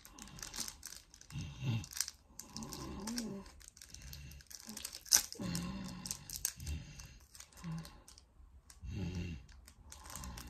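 Small foil packet being crinkled and picked at with the fingers in a struggle to tear it open: irregular crackling and clicking rustles.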